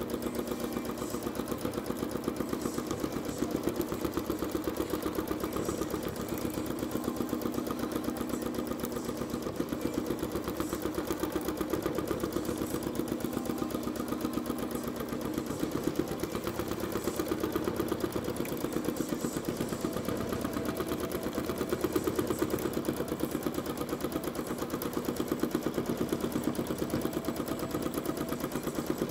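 Janome Skyline S9 sewing machine stitching steadily at speed for free-motion thread painting, a fast, even run of needle strokes and the clatter of the spring-loaded free-motion foot, with the speed easing up and down slightly.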